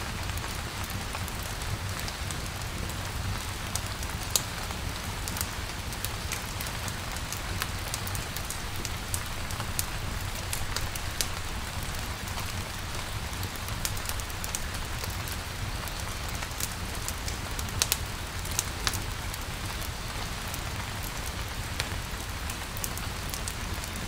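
Steady rain falling on a surface, an even hiss with scattered sharp ticks and a low rumble underneath.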